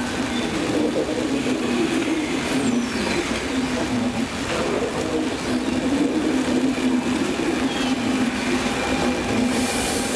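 Train moving along the station tracks: a steady rumble with faint high tones from the wheels, and a short hiss near the end.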